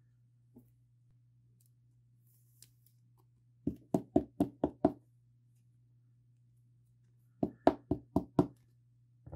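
Quick sharp knocks of a rigid plastic card holder being tapped on a tabletop, about five taps a second. They come in two runs, one of six taps and then one of five a few seconds later.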